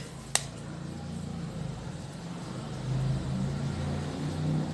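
A low, steady engine-like rumble, with one sharp click about a third of a second in.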